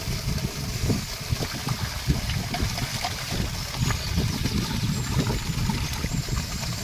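Water gushing steadily out of an upright pipe outlet and splashing onto grass and into a steel pot. A heavy, uneven low rumble runs under the splashing.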